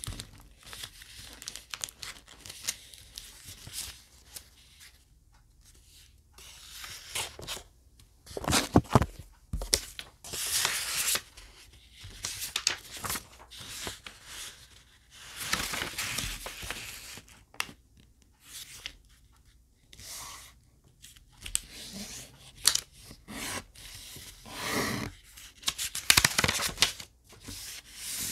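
Square colored origami paper rustling and crinkling as hands fold and crease it, in irregular bursts with several louder crackles.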